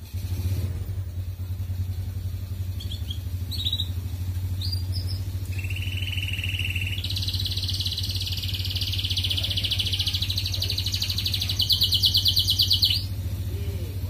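Domestic canary singing a song of trills: a few short chirps, then a held trill about halfway in, a longer higher trill, and a loud, fast rattling roll near the end. Under it a steady low engine-like hum.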